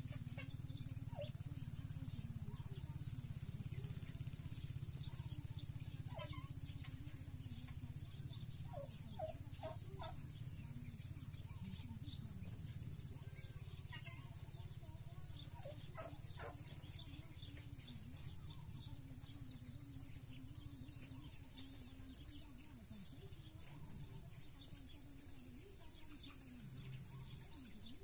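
Faint rural outdoor ambience: scattered short bird chirps over a steady low hum and a constant high-pitched insect drone.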